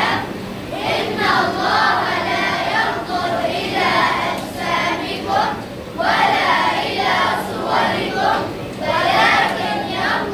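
A group of schoolboys' voices chanting together in unison, in phrases with short breaks between them.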